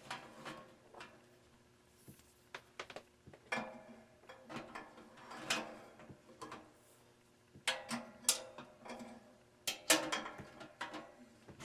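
Irregular clunks and knocks of hard objects being handled and set down, a dozen or so, several with a short metallic ring; the loudest come in a cluster about eight to ten seconds in.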